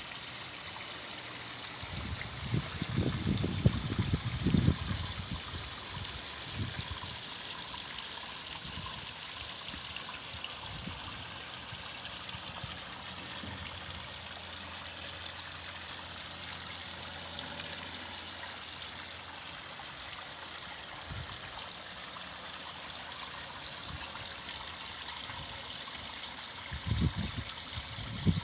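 Waterfall running steadily, a continuous hiss and splash of falling water. Low bumps come through about two to five seconds in and again near the end, and they are the loudest moments.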